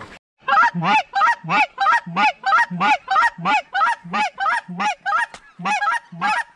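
Goose honks in a fast, even series, about three a second, each honk breaking from a low note up to a higher one. The sound drops out briefly at the very start.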